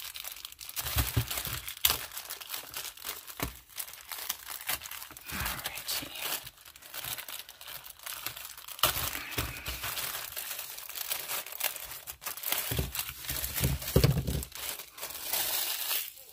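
Packaging crinkling and rustling continuously as the contents of a subscription box are handled and unwrapped, with a few soft knocks of items being set down.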